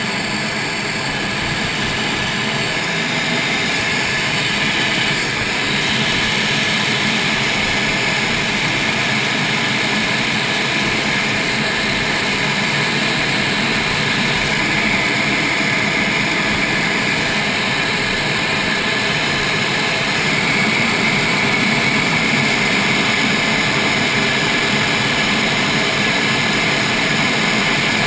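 Steady cockpit noise of a MiG-29UB in flight: its twin RD-33 turbofan engines and the rush of air over the canopy, heard from inside the cockpit. The noise grows a little louder about six seconds in.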